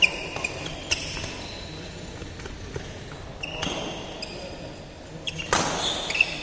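Badminton rally on an indoor court in a large hall: a sharp crack of a racket striking the shuttlecock right at the start, then scattered lighter clicks and short, high squeaks of court shoes on the mat.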